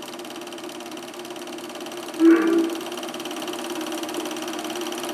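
Eumig Mark S 712 D 8mm film projector running, its film-transport mechanism whirring and clattering rapidly and steadily. About two seconds in, a short louder tone from the film's optical/magnetic soundtrack plays through the projector's speaker.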